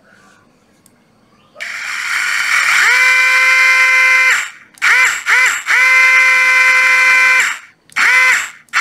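Brushless cordless drill motor run with no load: a high whine that rises in pitch as the trigger is squeezed and holds steady for about a second and a half, then stops. Two short blips follow, then a longer steady run of about two seconds and another short burst near the end. The drill runs very true, a sign it is in good working order.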